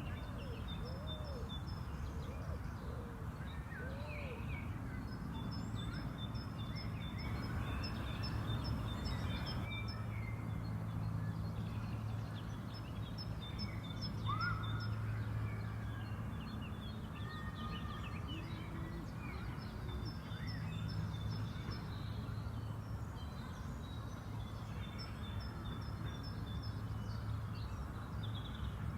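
Outdoor park ambience: several songbirds chirping and trilling in short repeated phrases over a steady low background rumble.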